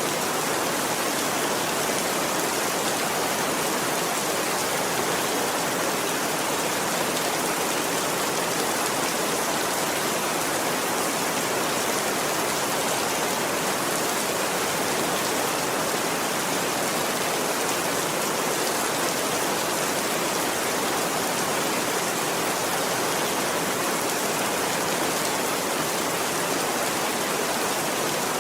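Steady rain falling in an even, unbroken hiss, with no thunder.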